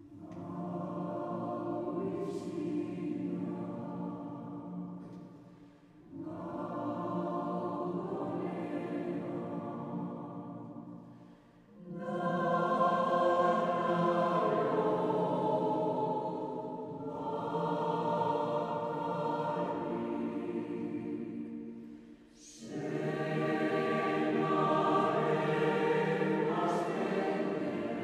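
Background choral music: a choir singing sustained chords in long phrases of about five to six seconds, each swelling in and fading out.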